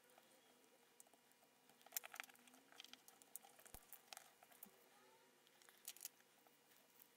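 Plastic housing of a USB fingerprint scanner being pried open with a flathead screwdriver and fingers: a string of faint clicks and small cracks as the weakly glued seam gives way. The loudest snaps come about two seconds in and again around six seconds.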